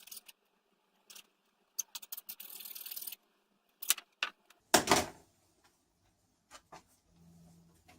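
Workshop handling sounds from wood and tools being worked by hand: scattered clicks and knocks, a scrape lasting about a second, and one heavier knock about halfway through. A faint low hum starts near the end.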